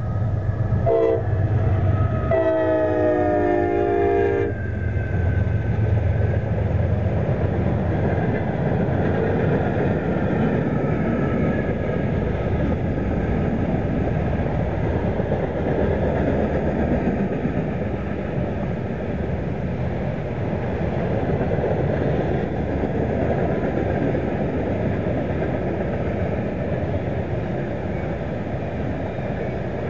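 CSX freight train passing: the lead GE diesel locomotive sounds its horn, a short blast about a second in and then a longer one of about two seconds, over the drone of the locomotive engines. After that comes the steady noise of the freight cars' wheels rolling on the rails.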